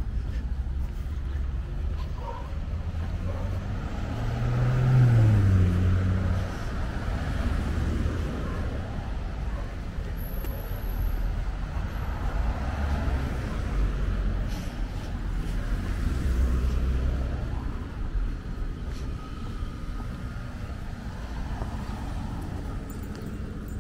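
Street traffic on a residential road: a steady rumble of cars, with one vehicle passing about five seconds in, its engine note falling as it goes by, and another passing about sixteen seconds in.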